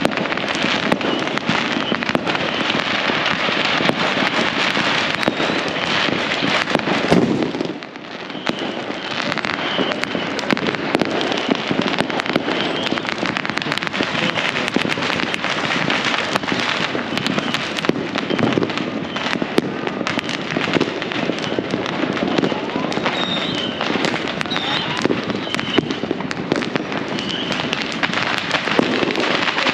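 Many fireworks and firecrackers going off at once in a dense, continuous crackle of overlapping pops and bangs. The din drops briefly about eight seconds in.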